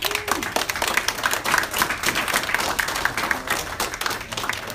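Audience applauding: dense clapping that starts suddenly and thins out near the end.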